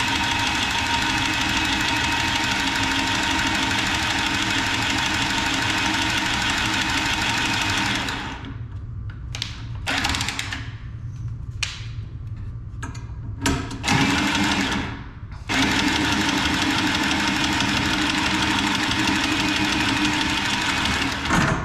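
Milwaukee cordless copper tubing cutter running as it cuts a copper supply pipe. It runs steadily for about eight seconds, then stops and starts in several short bursts, then runs steadily again until near the end.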